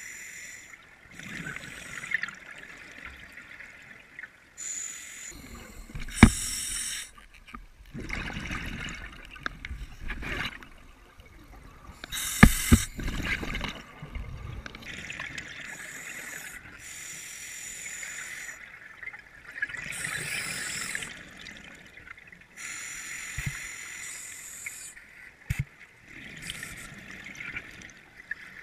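Scuba regulator breathing underwater: hissing breaths alternating with bubbling exhalations every few seconds, with a few sharp clicks.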